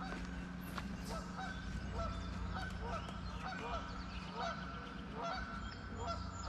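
Geese honking, a steady string of short calls a few times a second, with faint high bird chirps above them.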